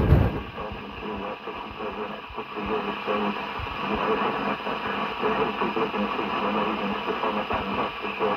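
CRT 6900N CB radio receiving an FM signal on 27 MHz: steady hiss and crackle with a faint, garbled voice underneath, after a loud pop at the very start.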